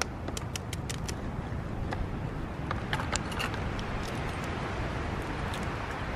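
Open wood fire crackling with scattered sharp pops over a steady rushing noise. A quick run of small clicks in the first second comes from an egg being tapped open with a knife.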